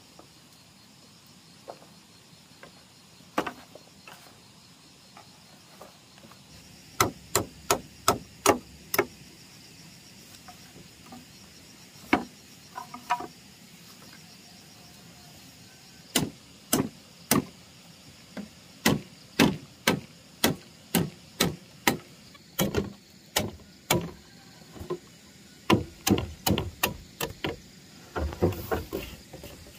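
Repeated sharp chopping blows, a few scattered at first, then a quick run of about six. After a pause they come steadily at about two a second to the end.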